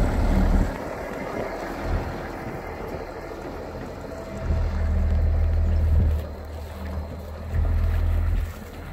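Wind buffeting the microphone in three low rumbling gusts: one right at the start, a longer one about halfway through, and another near the end, over a quieter steady background rush.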